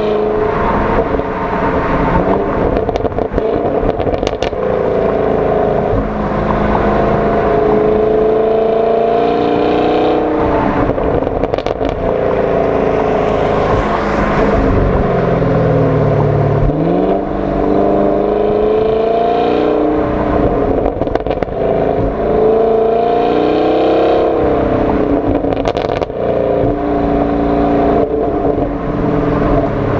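2019 Camaro SS 6.2-litre V8 heard at its dual-mode exhaust tips while driving. The engine is revved up in a low gear and let off several times, and the exhaust pops and crackles as the revs fall.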